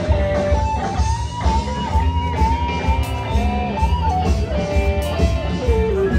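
Music: a guitar plays a gliding melody line over a pulsing bass beat.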